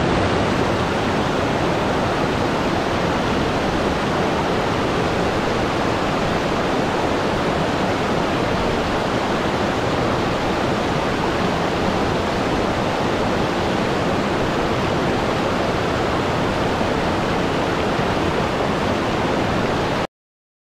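Mountain waterfall cascading over rocks: a steady rush of falling water that cuts off suddenly near the end.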